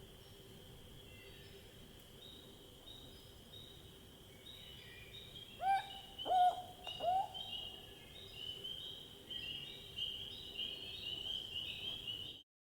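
An owl calls three times in quick succession, each call a short note that drops sharply in pitch and then holds. Under it runs a steady high chirping that grows louder toward the end, and the sound cuts off suddenly just before the end.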